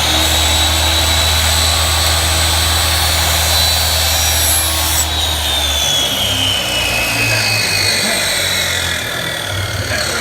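Electric miter saw running at full speed with a high steady whine as its blade is brought down through a 45-degree miter cut in wood; about five seconds in the trigger is released and the whine slowly falls as the blade coasts to a stop.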